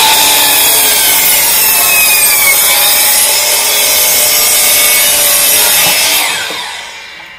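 A DeWalt sliding compound miter saw running at full speed and cutting through a thin wooden board. About six seconds in the motor is switched off, and the blade winds down with a falling whine.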